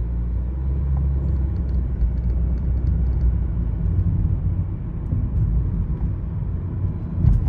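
Car driving, heard from inside the cabin: a steady low road-and-engine rumble, with a brief louder knock near the end.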